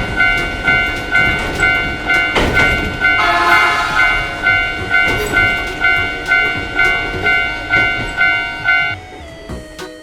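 Japanese railroad crossing bell ringing a fast, even ding-ding, about two and a half strikes a second, over the rumble of a passing train. The bell stops about nine seconds in.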